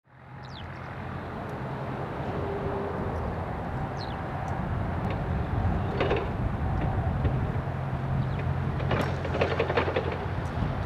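A steady low mechanical hum that fades in at the start, with a few short clicks and knocks and louder noisy spells about six seconds in and again near the end.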